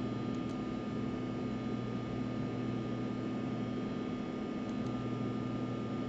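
Steady background hum and hiss, unchanging, with no distinct events.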